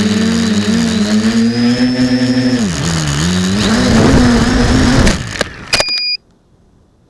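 Quadcopter's four electric motors and propellers whining close to an onboard camera, the pitch dipping and rising as the throttle changes. About five and a half seconds in come a few sharp knocks as it crashes upside down into plants, and the motors cut off and it goes quiet.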